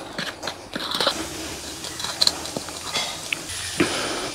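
A metal spoon mixing a grated-coconut and spice stuffing in an aluminium plate, with scattered light clinks and scrapes of spoon on metal.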